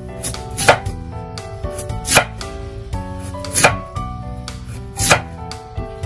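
Chinese cleaver slicing down through a peeled white radish (daikon) onto a bamboo cutting board: four unhurried chops, about one and a half seconds apart, with background music.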